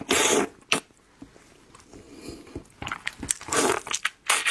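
Close-miked eating sounds: biting into and chewing a large red prawn. A burst comes at the start and a cluster comes again around three seconds in, with single clicks between.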